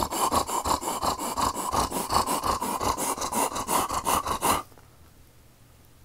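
A man imitating a dog's heavy panting with his tongue out: fast, even, huffing breaths at about five or six a second, which stop abruptly about four and a half seconds in.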